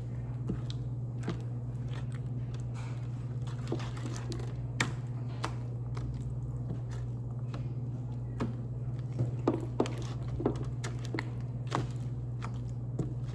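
Homemade slime being kneaded and stretched by hand as it activates: scattered short wet clicks and squelches, more of them in a cluster about two thirds of the way through, over a steady low hum.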